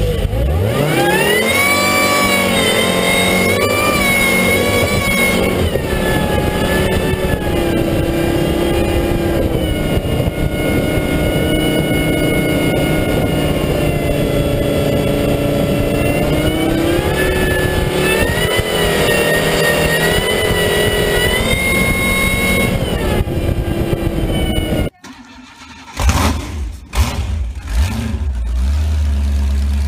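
The big inboard engine of a speedboat running hard under way, its pitch climbing and dipping as the throttle is worked. About 25 seconds in the sound cuts off, and near the end a second boat engine runs at low revs.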